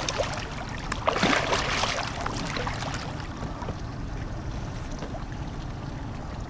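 Water splashing against the side of a boat as a snagged paddlefish is pulled alongside and grabbed at the surface, loudest about a second in, over a steady low wind rumble.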